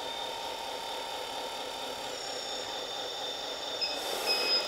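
Hydraulic pump of a 1/14 scale metal RC wheel loader running steadily, a small electric pump's even whine and hiss as the loader arm and bucket are worked. A few brief high chirps near the end.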